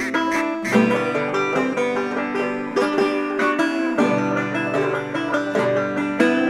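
Background music in a bluegrass style, led by a quickly plucked banjo with guitar.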